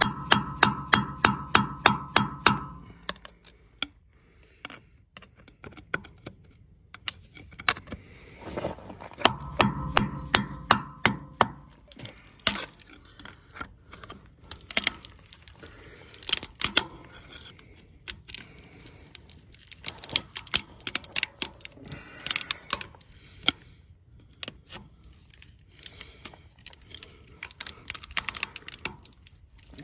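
A screwdriver being hammered like a chisel into the frayed end of an old steel winch cable in the anchor pocket of a John Deere 3325 winch drum, to cut the cable free. There is a quick run of metal-on-metal blows, about four a second, with a ringing tone, then scattered, irregular lighter knocks, and another fast ringing run about nine seconds in.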